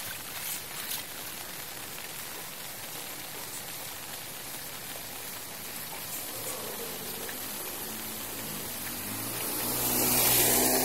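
Steady hiss of rain on a flooded street with shallow floodwater. From about halfway a low hum builds, and near the end a louder rush of spraying water swells up.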